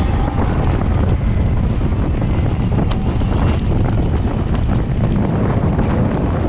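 Strong wind buffeting a camera microphone at racing speed, over the irregular drumming of galloping horses' hooves on turf. A single sharper click about three seconds in.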